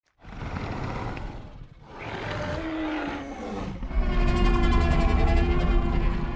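Film sound effect of a Tyrannosaurus rex growling and roaring in three stretches. The third, about four seconds in, is the loudest and longest: a deep, rumbling roar.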